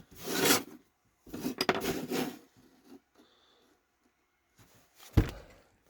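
Diesel heater's mounting plate being set into a freshly cut opening and shifted about: two short spells of scraping and clattering, then a single knock a little after five seconds.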